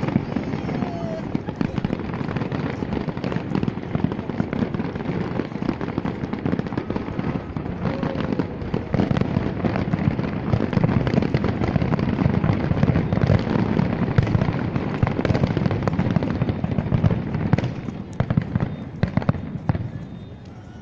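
Fireworks display: a dense, unbroken barrage of bangs and crackles over a deep rumble, thinning out near the end.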